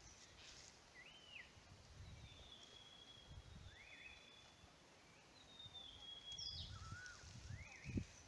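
Faint forest birdsong. One bird gives a short arched call note three times, and another gives two long, thin, slightly falling whistles in the middle, over low rumbles, with a soft thump near the end.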